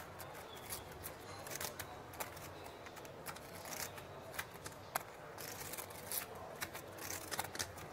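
Poker chips clicking against each other as a seated player fingers his stacks: short, sharp clicks at irregular intervals, some in small clusters, over quiet room tone.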